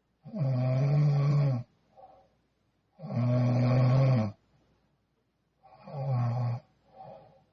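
A young woman snoring in her sleep: three long, loud snores about three seconds apart, with a brief fainter sound after the first and after the last.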